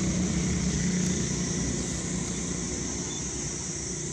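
A motor vehicle's engine running with a steady low hum, slowly growing fainter, over a constant high hiss.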